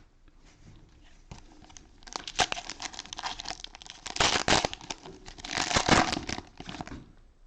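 Plastic cellophane wrapper of a trading card pack crinkling and tearing as it is opened, with two louder spells in the second half.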